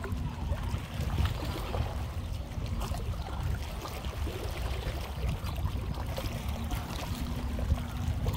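Sea water washing and trickling over shoreline rocks, over a steady low rumble.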